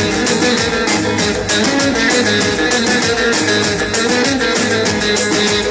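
Amplified live halay dance music played on an electronic keyboard: a plucked-string melody over a steady, driving beat.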